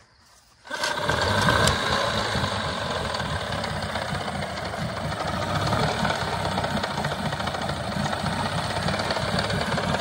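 Two-cylinder Mercury 9.9 two-stroke outboard in a test barrel of water, catching on the first pull about a second in and then idling steadily. It is idling well now that the replaced power pack gives spark to both cylinders.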